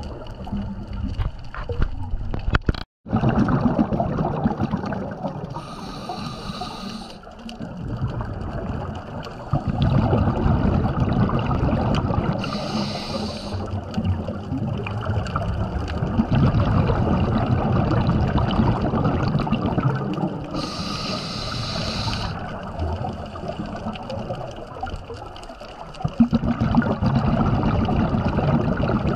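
Scuba diver breathing underwater through a regulator: three short hissing inhalations, several seconds apart, each followed by a long bubbling exhalation, the bubbles being the loudest part.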